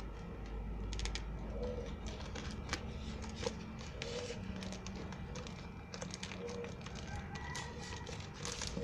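Crinkling and crackling of a tape-wrapped plastic parcel as it is cut with scissors and pulled open by hand: a run of small, irregular crackles and clicks.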